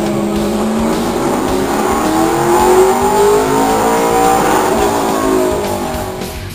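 Circle-track race car engine running on a load-controlled chassis dyno, its revs climbing steadily for about three seconds, holding briefly, then falling away: a dyno pull. The sound drops off sharply near the end.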